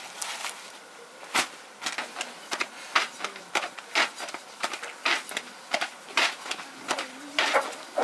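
A thin wooden rolling pin clicking and knocking against a round wooden board as thin tiri bread dough is rolled out and wound onto the pin. Short, sharp, irregular taps come about two or three times a second, with soft swishes of the dough between them.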